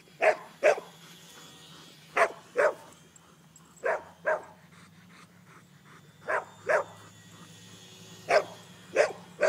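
Dog barking: about ten sharp barks, mostly in quick pairs roughly every two seconds, over a faint steady low hum.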